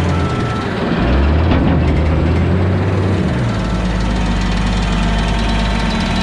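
Heavy diesel machinery running: excavator, loader and screening plant working together. A reversing beeper sounds briefly at the start, and the main engine note drops about three and a half seconds in.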